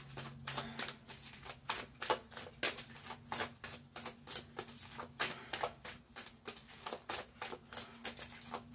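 Deck of tarot cards being shuffled by hand: a quick, irregular run of card flicks and slaps, several a second, with a faint steady hum underneath.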